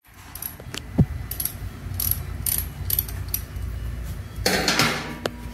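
Ducati Monster 1200S's L-twin idling through an SC Project slip-on exhaust: a steady low, lumpy beat. Scattered sharp clicks sit over it, and a brief burst of noise comes about four and a half seconds in.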